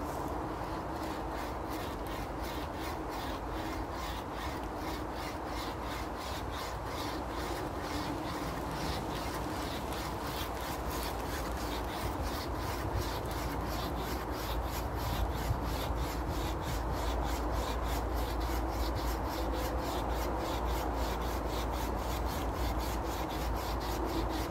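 A wire survival saw strung on a bent green stick as an improvised bow saw, rasping back and forth through a wooden branch in a quick, steady rhythm of strokes.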